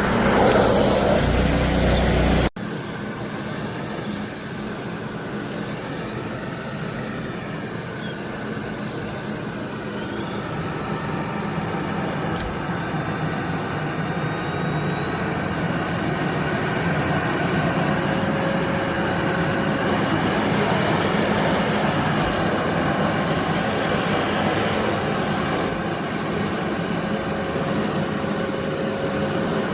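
Aspiron bagless canister vacuum cleaner running, a steady rushing motor noise with a faint high whine. The sound changes abruptly about two and a half seconds in, then holds steady and slowly grows a little louder.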